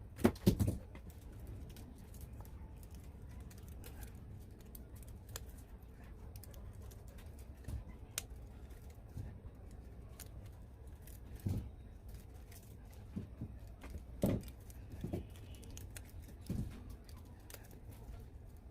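Irregular light clicks and knocks of small parts and tools being handled, over a steady low hum.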